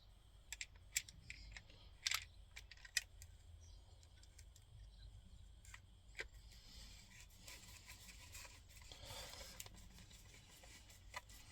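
Faint clicks and taps of a screwdriver and plastic door-handle trim being handled while a screw is driven in: a handful of sharp clicks in the first three seconds, one more about six seconds in, and a soft scraping about nine seconds in.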